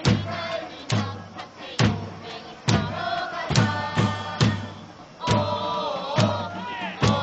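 Football supporters singing a chant together, led by a big drum struck on a steady beat a little more than once a second.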